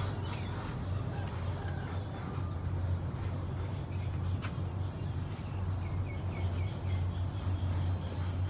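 Steady low hum, with a bird chirping a quick run of four short notes about six seconds in.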